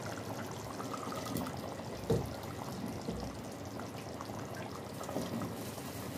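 Potato chunks dropped into curry gravy in an aluminium pressure cooker: soft plops about two seconds in and again about five seconds in, over a steady low hiss.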